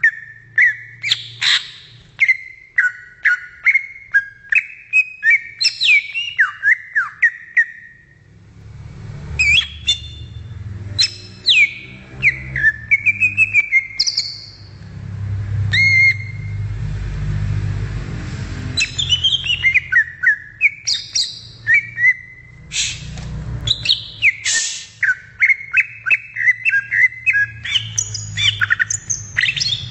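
Cucak ijo (leafbird) singing a rapid, varied run of whistles and chirps. The song thins out for several seconds in the middle under a low rumble, then resumes densely.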